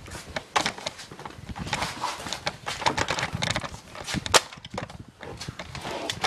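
Footsteps and scuffs on paving, with rustling and knocks from a handheld camera being carried on the move. A sharp click comes about four and a half seconds in.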